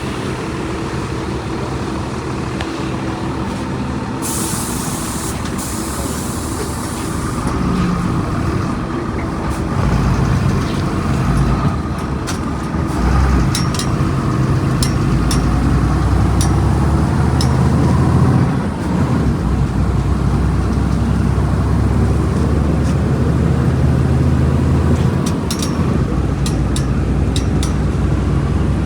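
Volkswagen Volksbus 17.230 EOD bus engine running, then pulling away with the engine note building from about eight seconds in. About four seconds in there is a burst of compressed-air hiss from the air brakes, and later a few sharp clicks.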